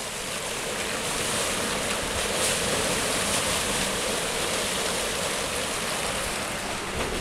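River rushing steadily, running high and fast with snowmelt.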